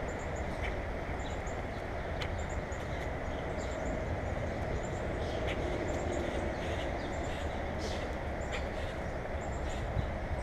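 Small birds at a feeder calling in short, very high chips, mostly in quick pairs and triplets repeated about once a second. Under them runs a steady low rumble of background noise.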